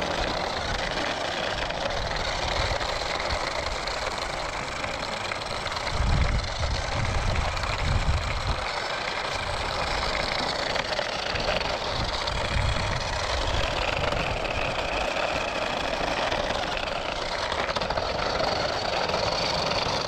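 Remote-control toy bus driving on rough concrete: its small electric drive motor and gears whir steadily while the wheels roll, with a few low rumbles now and then.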